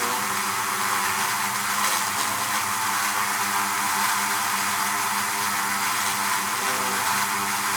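Beehive: a mass of honeybees buzzing together in a steady, dense hum, many wingbeat tones layered around a low drone.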